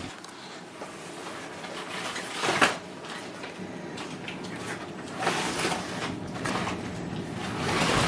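Rustling and scraping handling noises as things are moved about. A louder scrape comes about two and a half seconds in, and others after about five seconds and near the end.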